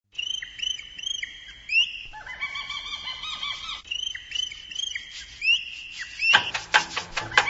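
Keeshond puppies whimpering in a pet carrier: a run of short high squeaks that flick upward in pitch, about two a second, a longer whine in the middle, then more squeaks. Louder background music with a beat comes in about six seconds in.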